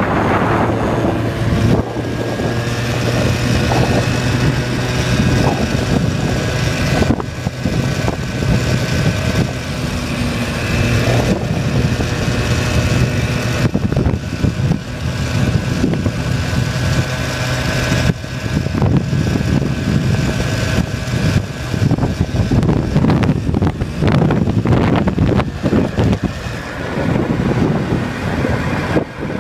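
Yamaha vehicle's engine running at cruising speed, a steady low hum mixed with heavy wind noise on the microphone; the engine note drops briefly a couple of times as the speed changes.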